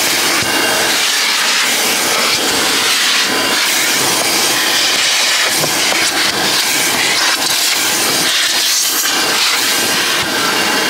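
Car wash vacuum hose running, its plastic nozzle sucking over the car's floor carpet: a loud, steady rush of suction.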